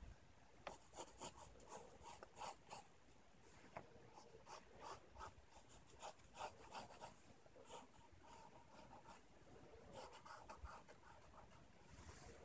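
Wooden pencil sketching on notebook paper: faint, short scratchy strokes in quick irregular runs.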